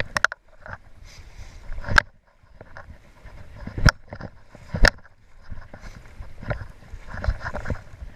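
Handling noise of a hand working a fly rod's cork grip right beside the camera: several sharp knocks, the loudest about two, four and five seconds in, over the steady rush of river water.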